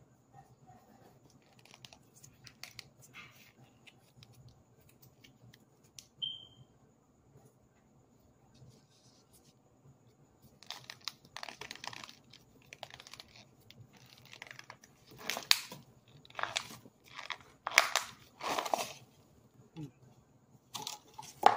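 Baked cornstarch crunching and crumbling as it is squeezed out of a thin plastic water bottle, with the plastic crinkling. Only a few small crackles at first, then from about halfway a run of louder crunches in bursts.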